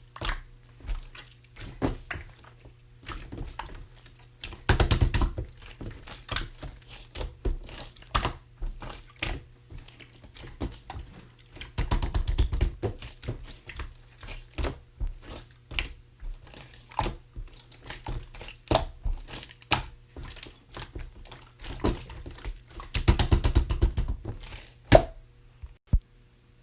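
Clear slime being squished and poked by hand: irregular wet clicks and pops, with three spells of quick squishing and crackling. A single sharp knock comes near the end.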